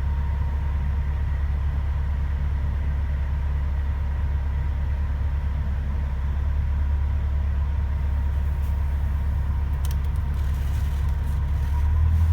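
Heavy diesel truck engine idling on a chassis dynamometer, a steady low rumble, which grows a little louder near the end. A few faint clicks in the second half.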